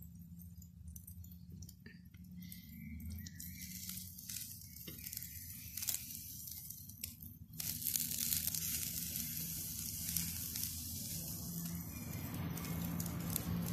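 Deer and turkey meat skewers sizzling on a wire grill over wood embers, with scattered crackles. The sizzle grows louder and denser about eight seconds in, over a steady low hum.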